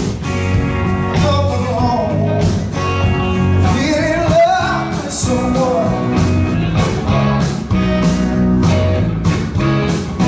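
Live rock band playing on stage: a semi-hollow electric guitar, bass guitar and drum kit, with a man singing over them.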